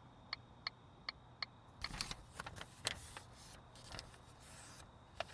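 Faint sound effects of a car stop. First a short run of evenly spaced electronic ticks, about three a second, which stop about a second and a half in. Then irregular rustling and clicking as licence and registration papers are handled and passed over.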